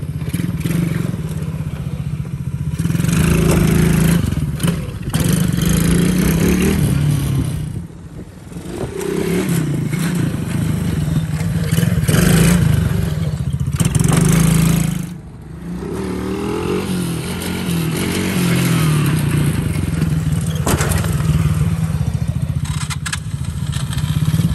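Small gas-engine quad bikes (mini ATVs) running and revving, the engine pitch rising and falling. The sound drops away briefly twice, about eight and fifteen seconds in.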